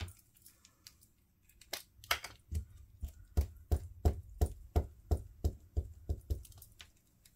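A steady run of about a dozen sharp taps or knocks, roughly three a second, each with a low thud, as of something struck repeatedly on a tabletop while crafting. The taps start a couple of seconds in and stop shortly before the end.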